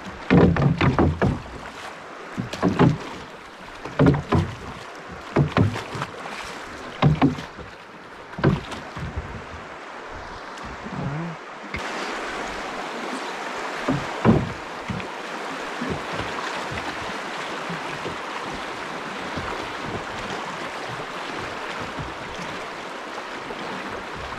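Oars of a homemade drift boat being rowed: knocks and splashes in a stroke roughly every second and a half. About halfway through, a steady rush of riffled river water takes over.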